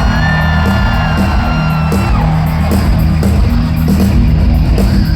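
Live nu-metal band playing an instrumental groove, with steady bass and drum hits. A long held high note, a yell or a sustained guitar tone, fades out about two seconds in.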